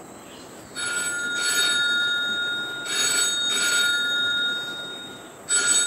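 Phone ringing during an outgoing call: a repeating double ring in steady high tones. It starts about a second in, sounds twice in full, and begins a third time near the end.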